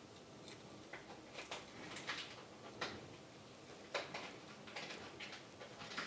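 Faint, scattered light ticks and taps from raw shrimp being halved lengthwise with a chef's knife by hand over a small ceramic bowl.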